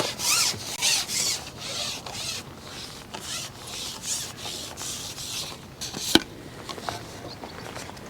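A series of short rubbing swishes, about one or two a second and fading after the first few seconds, with a single sharp click about six seconds in.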